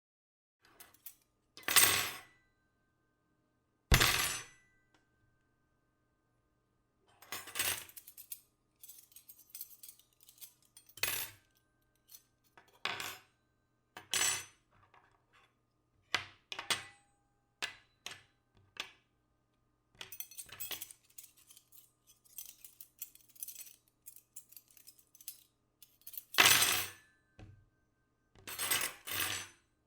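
Small metal objects dropped and tossed onto a table, a long irregular series of clattering, clinking impacts, some leaving a brief metallic ring. The loudest hits come about two and four seconds in and again near the end, with many lighter clinks between.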